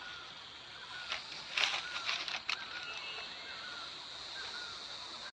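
Outdoor ambience: a bird repeating short warbling chirps about once a second over a steady high-pitched drone, with a few brief rustling clicks about two seconds in.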